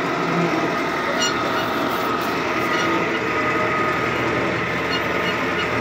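John Deere 5090E tractor's diesel engine running steadily under way, heard from inside the closed cab, with a steady whine over it.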